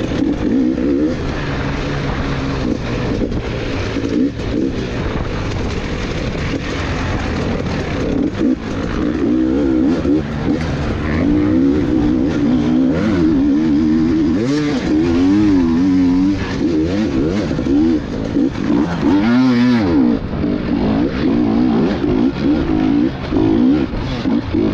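Two-stroke dirt bike engine revving up and down continuously under a working throttle, with a sharp drop and rise in revs near the end. Scattered knocks sound over the engine.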